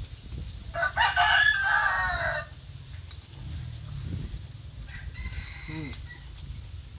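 A rooster crowing once, loud, lasting nearly two seconds from about a second in, followed a few seconds later by a fainter, shorter call.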